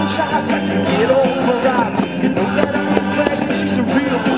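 A song playing loudly, with guitar and a singing voice, as the fireworks show's soundtrack.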